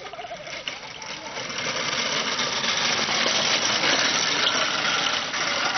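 Homemade kart's small hard wheels rolling and rattling over rough asphalt, the frame clattering. The noise grows louder over the first two seconds as the kart comes close, then stays loud as it passes.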